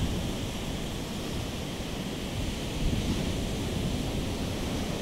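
Ocean surf washing onto the beach, a steady rushing noise with wind buffeting the microphone.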